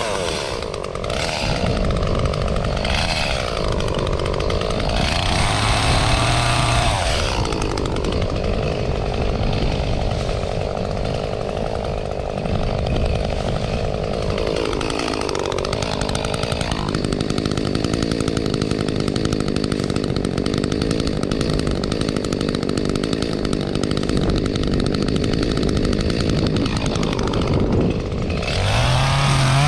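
Echo CS-352 two-stroke chainsaw running hard, its pitch dipping and recovering several times in the first seven seconds, again about halfway and near the end, as it cuts through small trees, and held steady at high revs in between.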